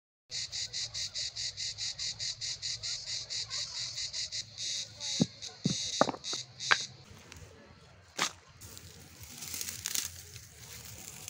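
Insect chirping in rapid even pulses, about six a second, which stops about seven seconds in. Over its last part, stones are set down on the ground with a few sharp knocks. Near the end comes the rustle and crackle of a handful of dry grass stems being pulled and gathered.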